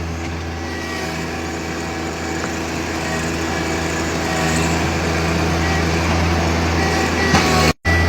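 John Deere 1025R compact tractor's three-cylinder diesel engine running steadily while its backhoe rams a tree stump, getting gradually louder. The sound drops out briefly just before the end.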